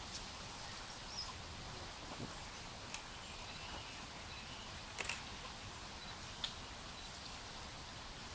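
Quiet forest ambience: a low steady hiss with a few short, sharp clicks and some faint high chirps.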